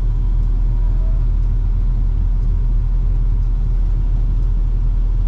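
Truck engine running steadily at rest, heard from inside the cab as an even low rumble.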